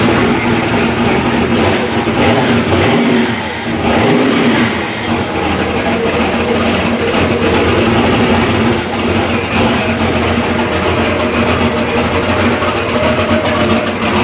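Freshly rebuilt turbocharged LS V8 running on methanol, idling steadily with a brief dip and change in revs a few seconds in.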